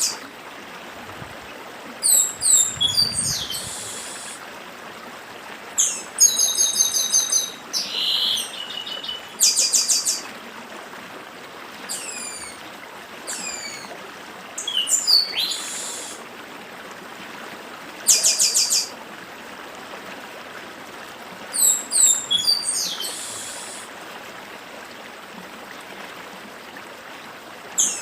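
Chestnut-capped blackbird (papa-arroz) singing its 'dedim' song: short bouts of falling whistles and fast trills, about seven of them, repeated every few seconds. A stream rushes steadily underneath.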